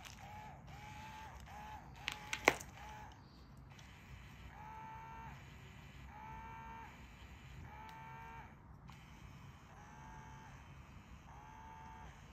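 Electric interactive cat toy's motor whining in repeated bursts as it swings its feather wand: short bursts at first, then longer ones of about a second each. A few sharp knocks about two seconds in.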